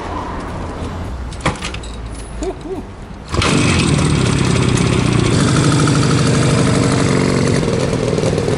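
IZh Jupiter-5 motorcycle's two-stroke twin-cylinder engine starting: it catches suddenly about a third of the way in and then runs steadily as the bike moves off.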